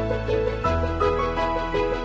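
Background music: a melody of short pitched notes over sustained bass notes that change about every second and a half.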